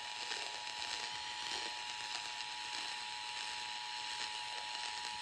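Emergency Alert System attention signal: the steady two-tone alert (853 and 960 Hz sounding together) held without a break, over a constant hiss of static.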